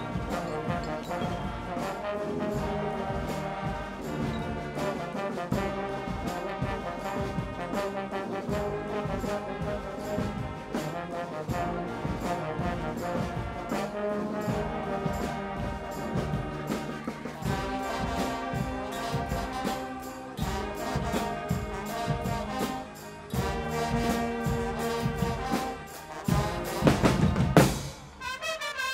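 Guggenmusik brass band playing live: trumpets, trombones and sousaphone over a steady drum beat, with a few loud accented hits near the end.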